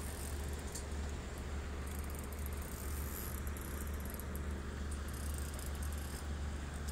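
A steady low hum under faint background hiss, with a few faint ticks.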